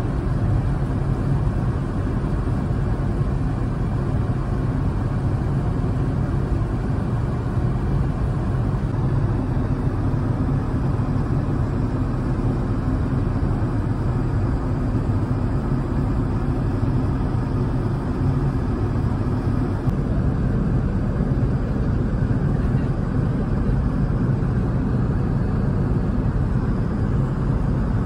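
Steady cabin noise of an Airbus A380-800 in cruise, heard inside the passenger cabin: an even low rush of airflow and engine sound that holds unchanged throughout.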